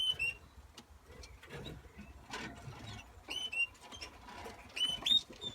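Canaries chirping: short, high calls coming in small clusters, with faint light pattering between them.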